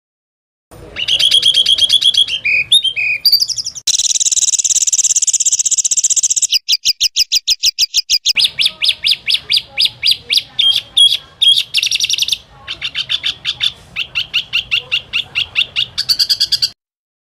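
Edited bird-song training recording ('masteran') of a songbird: fast runs of sharp, high repeated notes and trills, with one buzzy held note in the first half, starting and stopping abruptly.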